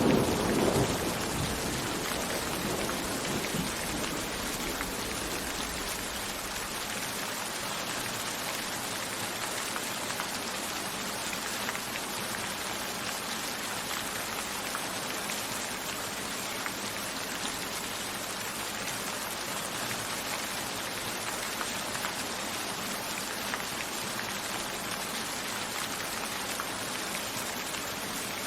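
Steady rain with scattered drop ticks. A thunder rumble dies away in the first couple of seconds.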